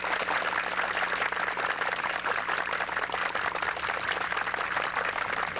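Dense, steady crackling noise over a low, even hum.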